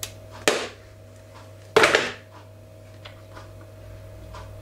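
Sharp knocks and clatter of a medal and its hard presentation case being handled and thrown away: three distinct knocks, the loudest about two seconds in, then a few faint clicks.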